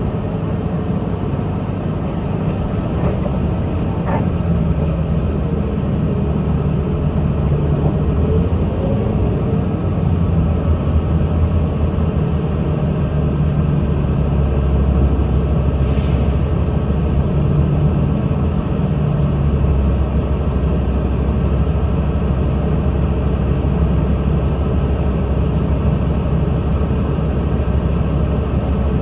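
Cummins ISL diesel engine of a 2009 Nabi 40LFW diesel-electric hybrid transit bus running: a continuous low rumble whose pitch shifts as the engine speed changes.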